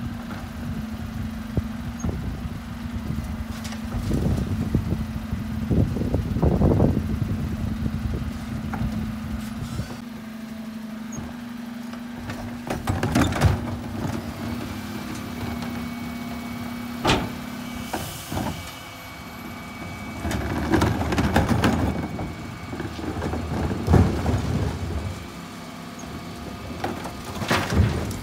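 Refuse collection lorry running with its Terberg OmniDEL bin lifter at work. A steady drone stops about two-thirds of the way through. Sharp knocks and bangs come from wheelie bins being lifted and tipped into the hopper, and the loudest comes a little before the end.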